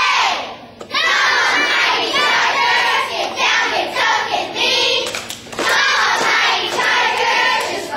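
Group of young girls chanting a cheer together in a sing-song rhythm, in phrases about a second long, with hand claps.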